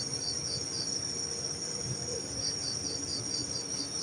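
Crickets chirping at night: a steady high-pitched trill with a pulsed chirp repeating about four times a second over it.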